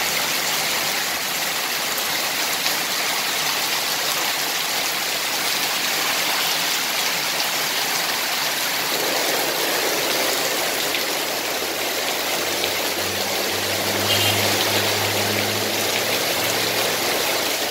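Heavy rain pouring steadily onto a road and the water pooling on it, a dense even hiss. For a few seconds near the end a passing vehicle's engine hums low beneath the rain.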